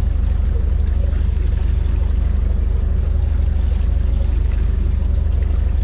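A fishing boat's engine running steadily, a constant low drone with a faint hum above it.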